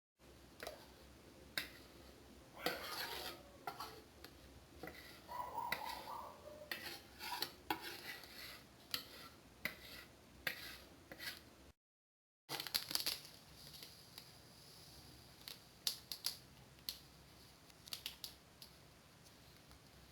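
A utensil stirring and scraping in a steel bowl, with scattered clinks, as whipped cream is mixed into beaten egg yolks and sugar. The sound drops out completely twice, very briefly.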